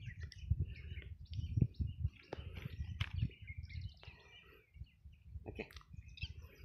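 Birds chirping repeatedly, with short calls again and again, over irregular low rumbling noise on the microphone.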